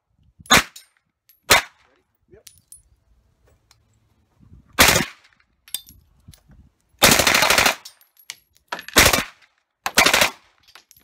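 Submachine gun firing on full auto: two single shots about a second apart, then a short burst, a longer rapid burst of under a second about seven seconds in, and two more short bursts near the end.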